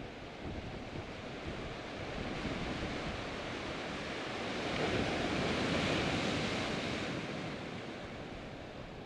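Sea surf washing in over black lava rocks, one swell building to a peak midway and then subsiding. Wind buffets the microphone.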